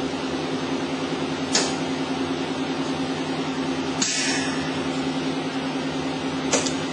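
Steady mechanical hum from a tensile testing machine, with a sharp click, a brief scrape and a double click as a plastic film strip is handled and clamped into its grips.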